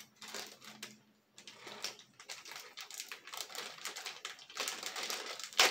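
Thin clear plastic bag of a Happy Meal toy being handled and pulled open by hand: crinkling and rustling with many small irregular clicks, and one sharper crackle near the end.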